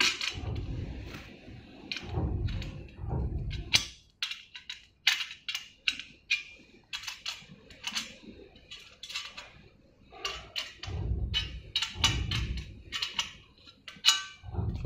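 Irregular metal clicks and clinks as bolts and a chrome barber chair bracket are handled and fitted together by hand. Low rumbling handling noise comes near the start and again past the middle.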